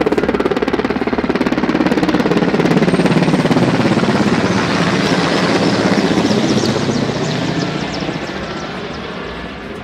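Mi-8 twin-turbine helicopter, its main rotor beating in a rapid, even pulse over the engine noise, loud through the middle and fading over the last few seconds.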